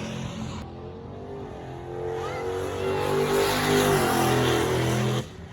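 Turbocharged 4.8 LS V8 in a Fox-body Mustang running under throttle on a drag pass. The engine sound grows louder over the first few seconds and cuts off suddenly near the end.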